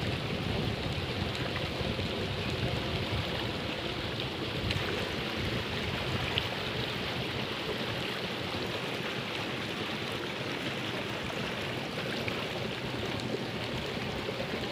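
Water rushing steadily along a concrete irrigation channel, an even hiss with no break.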